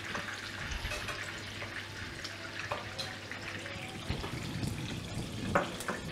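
Smoked pork ribs sizzling in hot oil in a frying pan, with a few sharp clicks of metal tongs against the pan, the strongest near the end.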